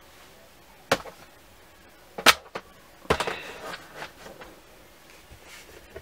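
Card stock being handled on a craft table: a sharp tap about a second in, a louder one about a second later, then a brief rustle of paper.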